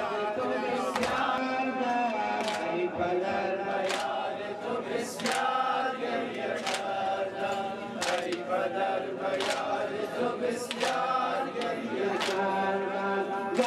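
A group of men chanting a Muharram mourning lament (noheh) together, with a sharp beat about every second and a half in time with the chant.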